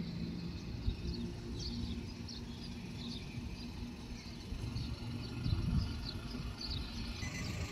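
Low vehicle rumble with a faint steady hum, swelling about five and a half seconds in, while small birds chirp in short high notes throughout.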